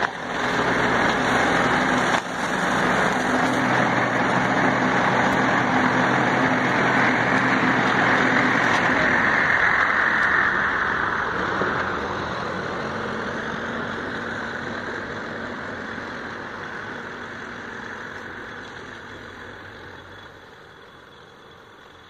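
New Holland 7630 tractor's diesel engine running with its articulated side-arm mower head spinning, a steady engine hum under a broad whirring hiss. It is loud for about the first eleven seconds, then fades steadily as the tractor moves away.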